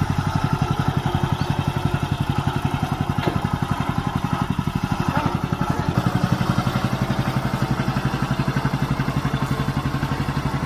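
Small engine of an agricultural power carrier running steadily, with a rapid, even firing beat.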